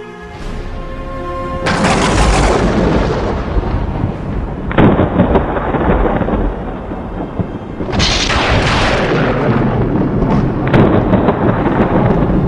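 Loud thunder-like crashes as a film sound effect, four of them about three seconds apart, each fading out slowly; a rising swell leads into the first.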